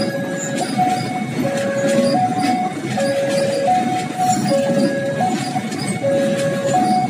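Fuel tank wagons of a freight train rolling past close by, the wheels rumbling and clacking over the rail joints. Over it a level-crossing warning alarm repeats a two-note tone, alternating between a higher and a lower note, each held under a second.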